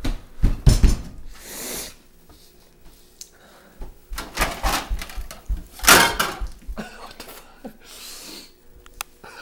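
Kitchen cabinet doors and drawers opening and closing, with knocks and clatter as someone rummages inside a cupboard; the loudest knock comes about six seconds in.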